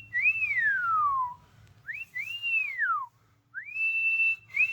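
A person whistling a repeated phrase: each note slides quickly up, holds briefly, then glides down, about three times over with short pauses.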